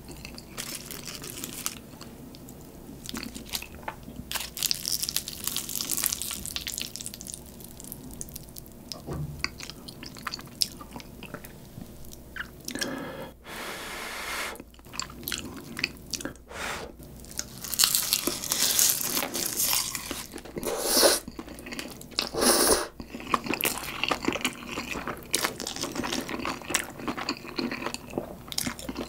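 Close-miked eating sounds: a sheet of plain dried seaweed (gim) crackling and crunching as Samyang Carbo Buldak noodles wrapped in it are bitten and chewed. The crunches are loudest a little past the middle.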